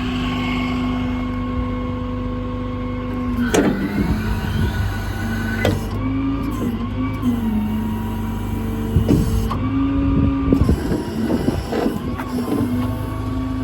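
Service truck's hydraulic outriggers being retracted: the hydraulic system and engine run with a steady hum that sags and rises in pitch several times as the valves are worked. Sharp clunks about three and a half and six seconds in, rattling and knocking for a few seconds near the end.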